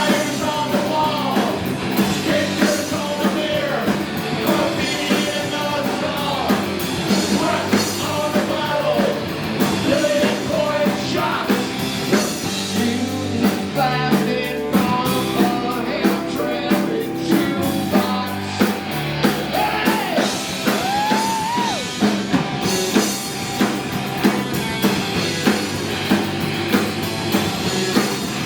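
Live rock and roll band playing a loud, driving song with drums, instruments and singing.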